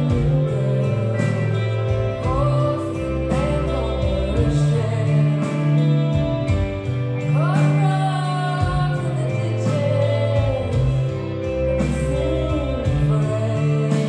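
Live rock band playing: a woman sings the lead vocal over bass guitar and drums, with regular cymbal hits.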